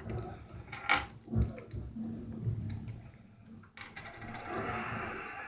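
Small metallic clinks and taps as cockatiels peck at and push a coin and a paperclip on a hard surface, a few separate clicks with a sharper cluster near the end.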